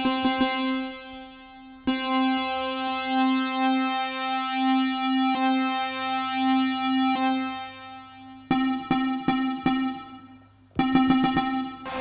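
A sampled vintage synthesizer note played back from a sampler pad: one held tone rich in overtones, staying on the same pitch and sustaining on its loop, with a slow pulsing wobble in the middle. It is restarted about two seconds in, then tapped several times in quick succession near the end, and drops out briefly before a final note.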